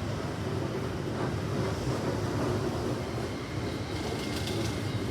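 Keikyu 1500-series electric train running into the station with a steady rumble. A faint high tone comes in partway through, and a few sharp clicks follow near the end.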